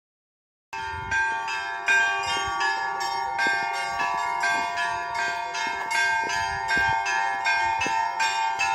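Orthodox church bells ringing: a quick, even run of strikes, about three a second, over a sustained ringing tone. It starts under a second in and cuts off abruptly near the end.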